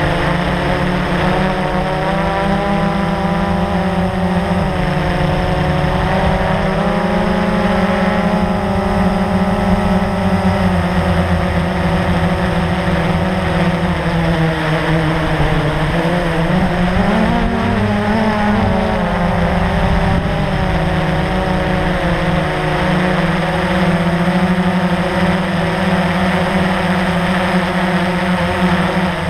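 Blade 350 QX quadcopter's brushless motors and propellers buzzing steadily in flight, heard close-up from the GoPro on the aircraft. About halfway through, the pitch wavers and rises briefly as the motor speeds change, then settles again.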